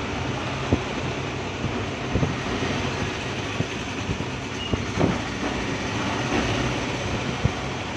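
Steady mechanical hum and hiss of a phone-screen separator machine running, with a few light knocks and taps from work on the phone clamped on it.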